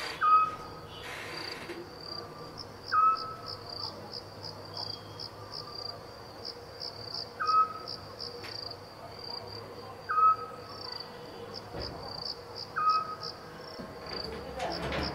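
Crickets chirping steadily in a fast high pulse, about four chirps a second. A short, louder call that jumps up in pitch and then holds repeats about every two and a half seconds.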